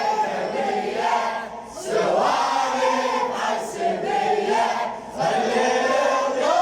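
A crowd of men chanting a Husseini mourning refrain (latmiyya) in unison, in long sung phrases with two short breaks between them.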